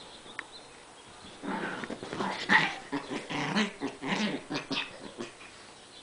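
Small dogs play-fighting, growling in a quick, irregular string of short growls that starts about a second and a half in and stops near the end.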